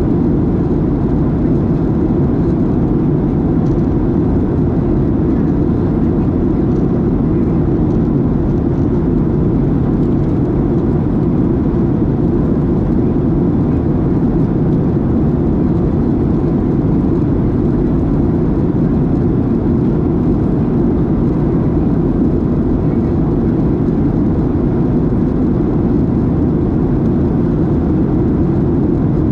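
Steady in-flight cabin noise of a Boeing 737-700: its CFM56-7B engines and the airflow over the fuselage make an even, low rumble that holds without change, heard inside the cabin.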